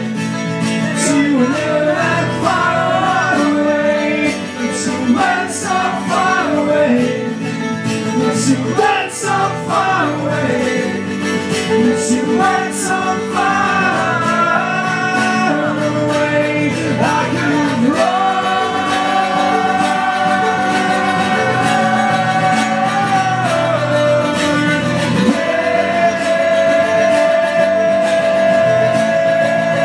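Live acoustic guitar strumming under a mandola melody. The melody runs busily at first, then settles into long held notes over the second half.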